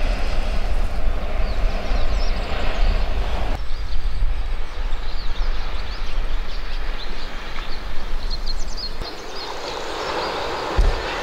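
Seaside outdoor ambience: wind buffeting the microphone with a heavy low rumble while small birds chirp. About nine seconds in the rumble gives way to the steady wash of surf on a sandy beach, with a single low thump near the end.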